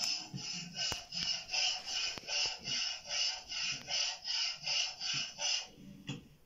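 A sound-lotto recording played back: a rhythmic noise repeating about three times a second that stops near the end.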